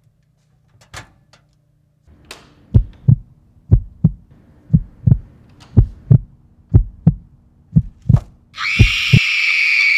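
Heartbeat sound effect: deep lub-dub pairs of thumps, about one pair a second, over a faint hum. Near the end a loud, high woman's scream breaks in and is held.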